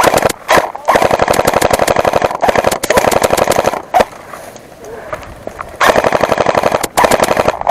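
Airsoft rifle firing rapid full-auto bursts close to the microphone: a short burst, then one of about two seconds, a lone shot about four seconds in, and two more bursts near the end.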